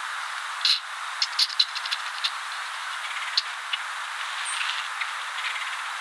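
Woodland background with a steady hiss of insects, broken in the first half by an irregular run of short, sharp clicks and chips. A single brief high chirp comes a little after the middle.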